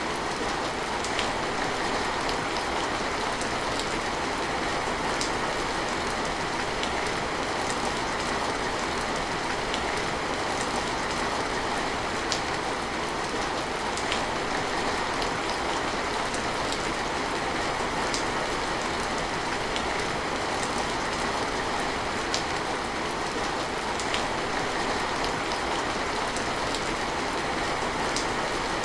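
Steady rain falling: an even hiss with occasional sharper individual drop ticks scattered through it.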